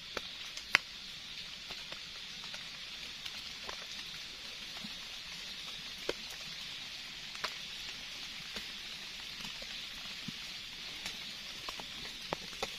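Faint scattered clicks and rustles of leaf litter and twigs as hands and a small knife dig a wild mushroom out of the forest floor and scrape its base, over a steady high hiss.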